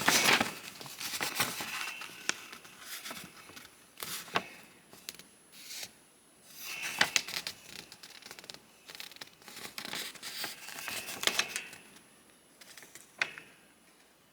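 Paper pages of a model kit instruction manual being handled and turned, rustling on and off with a few sharp clicks.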